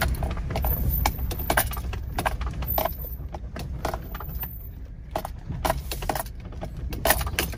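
Low rumble of a four-wheel-drive vehicle creeping along a rough mulched track, heard from inside the cab, with irregular clicks, knocks and rattles as the tyres roll over wood mulch and bumps.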